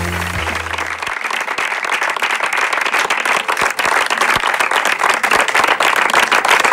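Audience applauding, a dense crackle of many hands clapping. A brass jazz tune holds its last low notes and cuts off about a second in.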